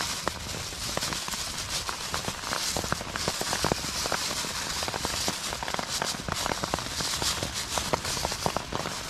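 A thin polyethylene bag crinkling and crackling as hands fold and twist it, with many small sharp irregular crackles throughout.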